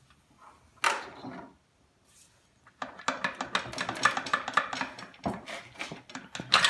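Metal clunks and rattling as the lower unit of a 1962 Johnson 10 hp outboard is worked loose from the drive shaft housing: one sharp knock about a second in, then, after a short pause, a long run of rapid clinks and knocks.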